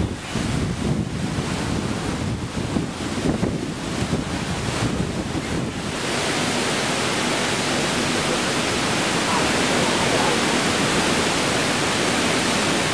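Wind buffeting the microphone in uneven gusts, then an abrupt cut about six seconds in to a steady, even rushing hiss.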